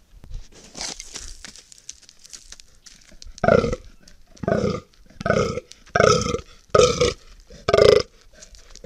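Fallow deer buck groaning in the rut: a guttural grunt repeated six times, each about half a second long, about one a second, starting about three and a half seconds in.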